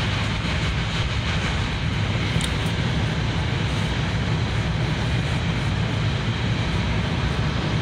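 Steady low rumble and rushing of a Tohoku Shinkansen Hayabusa train running at speed, heard inside the passenger cabin. Just after the start the louder rush of an oncoming shinkansen passing alongside dies away, and there is a brief high tick about two and a half seconds in.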